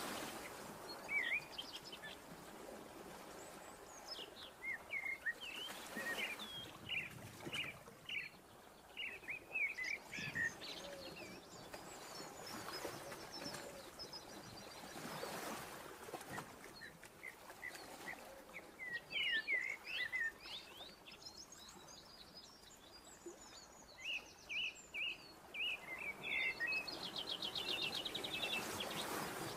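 Small birds chirping in short, scattered calls over a faint steady hiss, with a quick buzzing trill near the end.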